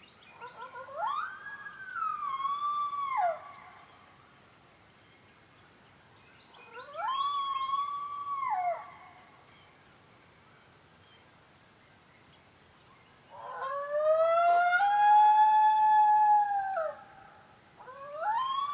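Female coyote howls: four long drawn-out calls, each sliding up in pitch, holding, then dropping off at the end. The third call, about two-thirds through, is the longest and loudest, and a fourth begins near the end.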